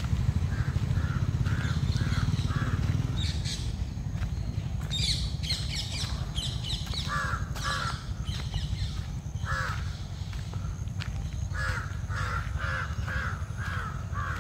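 A crow cawing in several runs of short, evenly spaced caws, about three a second. Smaller birds chirp higher up about five seconds in, over a steady low rumble.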